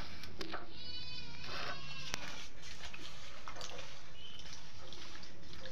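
A high, wavering animal call, bleat-like, about a second in, with fainter short calls later.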